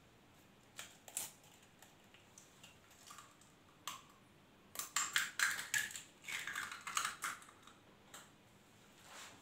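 A raw egg tapped against the rim of a ceramic bowl and its shell cracked open by hand: a few light clicks, then a quick run of taps and shell cracks about halfway through.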